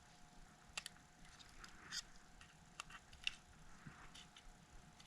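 Faint, scattered small clicks and taps, about five or six of them, from small repair tools handling an opened iPhone 6s while its battery adhesive pull tabs are removed.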